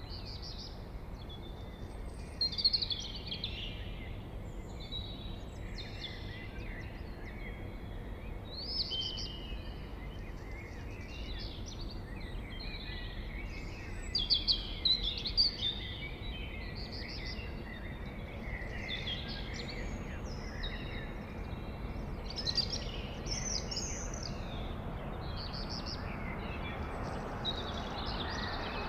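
Blackbird singing a run of short, varied song phrases one after another, the loudest about two and a half seconds in and around fourteen to fifteen seconds in, over a steady low hum of background noise.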